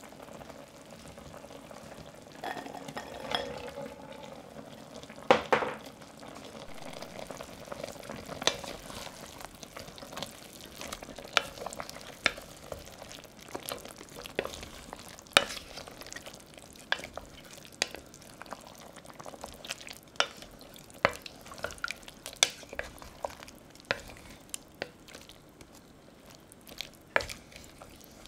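A wooden spoon stirring chicken pieces and chestnuts in an enamelled cast-iron pot. It knocks irregularly against the pot and the food, about one or two knocks a second, over a faint steady sizzle from the pot.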